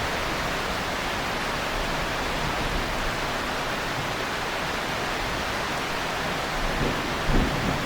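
Heavy rain falling steadily as an even hiss. Near the end, low rumbles of thunder begin to swell in.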